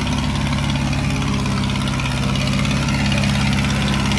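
Diesel tractor engines running steadily while a red tractor, chained to a blue tractor, pulls against it.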